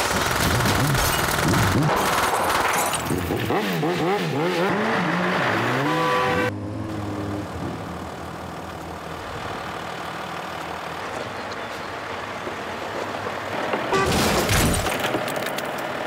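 A long burst of rapid gunfire raking a car and shattering its glass, dense and loud for about the first six seconds. After it cuts off, a quieter steady noise follows, which swells again briefly near the end.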